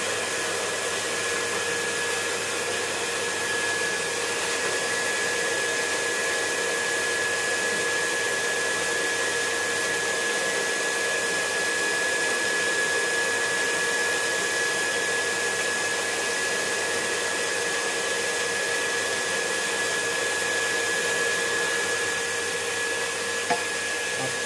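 Handheld butane torch on a gas canister burning with a steady hiss, with a thin steady whistle in it, as it heats a copper tube joint. One small click near the end.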